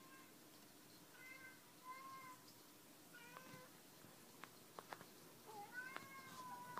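Cat meowing: a few short, high mews, then a longer one near the end that rises and holds, with a few sharp clicks in between.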